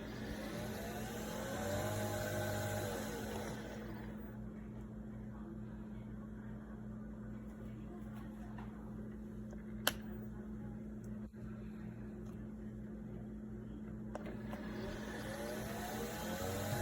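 Nespresso Vertuo Next capsule machine running: a steady motor hum with an even low pulsing, and a whir that rises and falls in pitch near the start and again near the end, with a single sharp click about ten seconds in. The owner says the machine is failing to make coffee.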